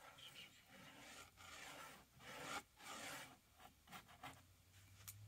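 Paintbrush scrubbing paint onto a textured canvas: a run of faint, short brushing strokes, one after another with brief pauses.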